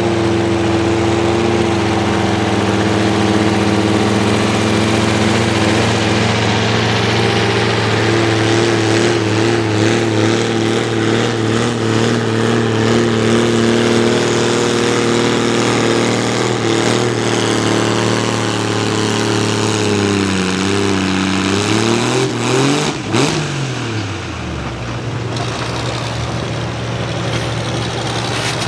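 Oliver tractor engine running hard at a steady pitch under full load, pulling a weight-transfer sled. About twenty seconds in, the engine speed sags and wavers, then falls off as the pull ends, and the engine settles to a lower, quieter run.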